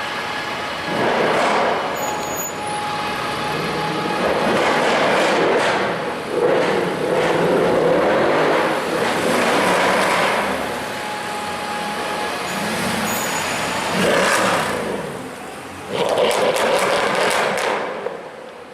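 Mercedes C63 AMG engine revving in repeated loud surges, about six over the stretch, over steady street traffic noise.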